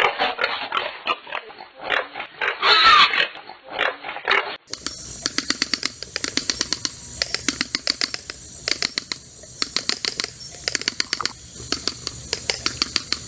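Collared peccary calls: harsh grunts and squeals for the first four and a half seconds. Then a separate recording begins, with runs of rapid sharp clicks over a faint high hiss.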